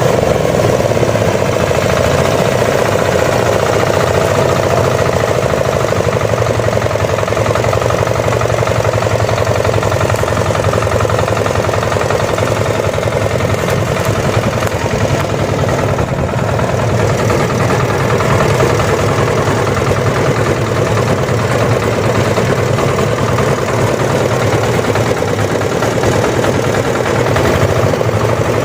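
Diesel-engined rice threshing machine running steadily, a loud, even drone.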